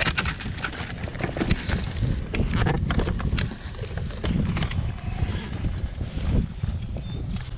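Wind buffeting the microphone in an irregular low rumble, with scattered light clicks and knocks.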